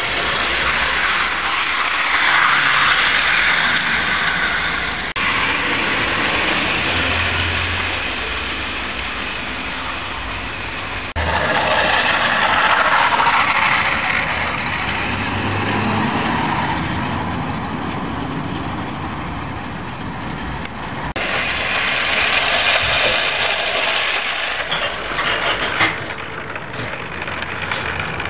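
00 gauge model diesel locomotives, a Class 58 and a Class 55 Deltic, running on garden track: a steady whirr of the electric motors and wheels on the rails. The sound changes abruptly three times, about 5, 11 and 21 seconds in.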